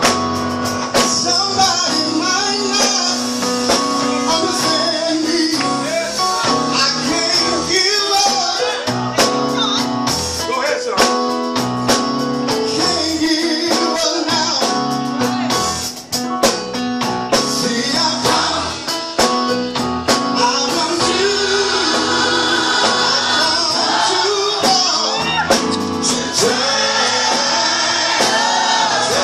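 Live gospel music: a man singing lead into a microphone with a group singing along, backed by electric bass and drums with many percussive hits.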